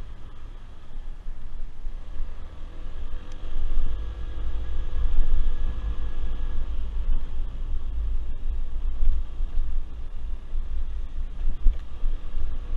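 Yamaha Zuma 50cc scooter riding along at street speed: heavy wind buffeting on the microphone is the loudest part, with the small engine's note faint beneath it, its pitch shifting gently now and then.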